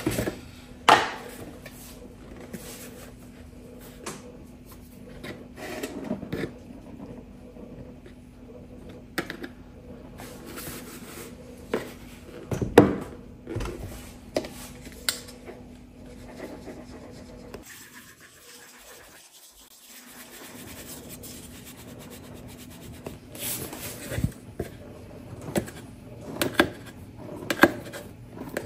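Rubbing, scraping and knocking of kitchen things handled on a table: a large plastic flour jar opened and moved about, and a metal sieve in an enamel basin. Flour is tipped from the jar into the sieve near the end. The loudest sound is one sharp knock a little before halfway.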